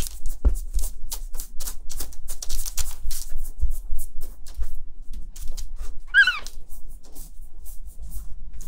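Quick, clicky crinkling and rustling of a disposable pet pad as a hand rubs a squirming newborn kitten on it. About six seconds in, a kitten gives one short high mew that falls in pitch.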